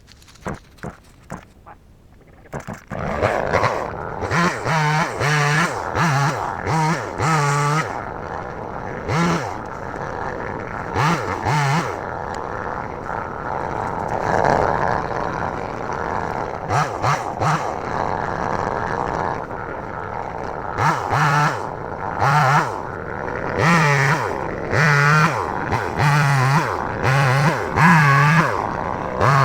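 A chainsaw comes in suddenly about three seconds in and keeps running, its engine revved up and down again and again while cutting up trees.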